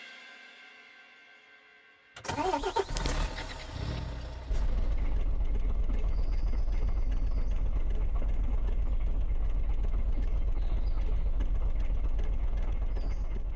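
Truck engine starting about two seconds in, with some uneven knocking at first, then settling into a steady low idle.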